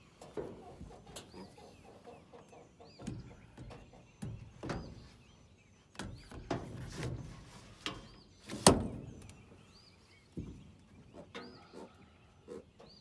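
Birds calling with short, repeated arched chirps, over a scatter of knocks and thumps on the boat's deck; the loudest is a single sharp knock about two-thirds of the way through.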